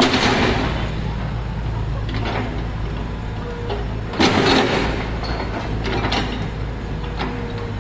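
Komatsu excavator's diesel engine running steadily, with two louder bursts of noise from the working machine, one at the start and one about four seconds in.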